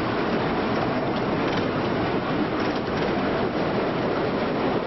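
Vintage electric streetcar rolling along street track: a steady rumble and rattle with a few faint clicks.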